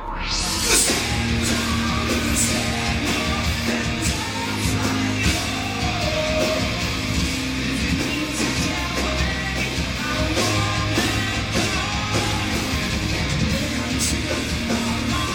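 Live rock band playing loud through the venue PA: distorted electric guitars, drums with cymbals and a singing voice, heard from within the crowd. The full band comes in right at the start after a brief dip.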